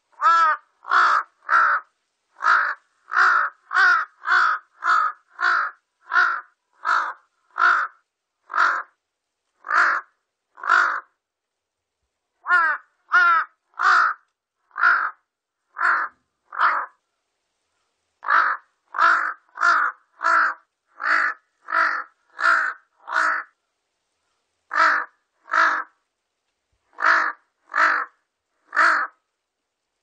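Large-billed crow calling: a long series of short, harsh caws, about two a second, in runs broken by pauses of a second or so.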